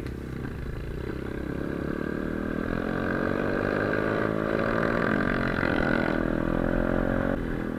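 125 cc pitbike engine running under way off-road, its revs rising and falling with the throttle, dropping in pitch about seven seconds in.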